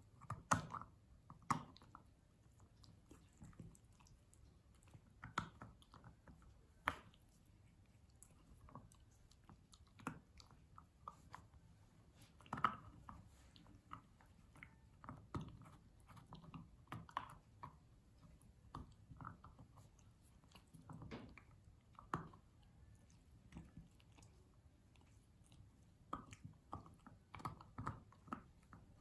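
Akita Inu gnawing and biting on a hand-held stick of beef sinew: irregular chewing with sharper crunching bites scattered through, a few of them loud. The sinew is too tough for her to bite a piece off.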